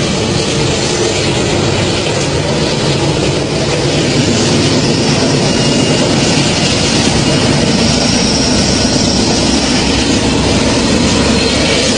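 Train running past with a loud, steady rumble and rushing noise.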